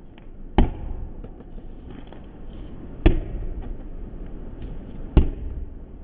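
Camera handling noise: three sharp knocks, about two to two and a half seconds apart, over a low steady rumble.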